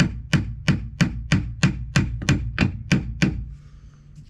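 Hammer tapping on a gear puller clamped on an air compressor's drive gear: sharp metallic strikes about three a second, each ringing briefly, stopping about three and a half seconds in. The taps shock a stubborn gear that won't pull off its shaft.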